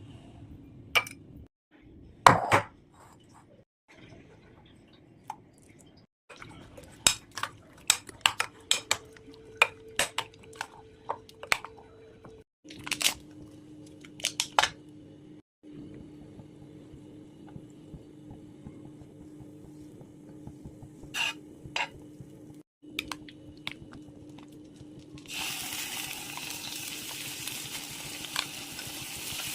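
Kitchen utensils clinking and knocking against dishes and bowls in scattered strikes, then near the end a steady sizzle starts as food goes into a hot pan.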